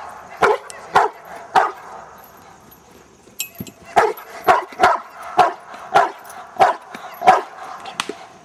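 A 14-month-old American bulldog barking in protection table work: three barks, a pause of about two seconds, then a run of seven at about two barks a second.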